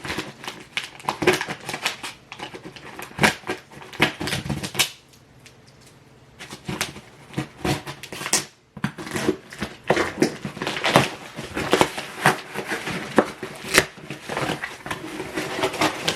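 A heavily taped shipping package being torn open and handled: a busy run of crackles, rips and knocks from the tape and packaging, with a pause of about a second starting about five seconds in.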